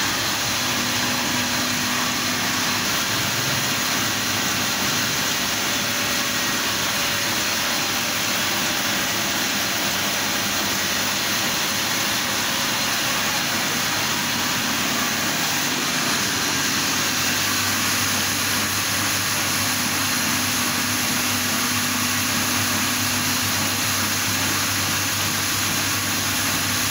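Atta chakki flour mill driven by a 15 hp electric motor, running steadily while grinding grain: a loud, even machine noise with a faint hum and no change.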